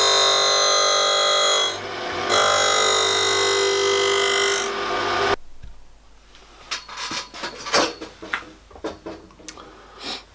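Surface grinder wheel taking a light two-thou pass across a machine slide's top surface: a loud, high ringing screech of many tones that dips briefly about two seconds in. About halfway through it cuts off abruptly, leaving only faint clicks and knocks.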